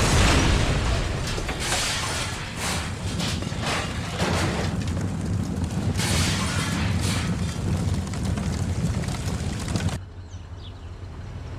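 A large explosion goes off, followed by a long heavy rumble with several more blasts and surges of fire and debris noise. About ten seconds in it drops to a quieter low rumble.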